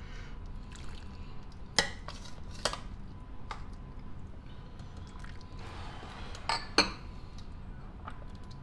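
A metal ladle scooping soup out of a stainless steel pot and pouring it into a bowl, clinking sharply against the pot a few times, loudest about two seconds in and near seven seconds, with a splash of poured liquid just before the last clink.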